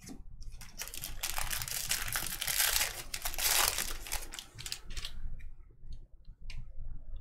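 Foil wrapper of a baseball card pack being torn open and crinkled, loudest about halfway through. After that come a few short clicks as the cards are slid and flipped through by hand.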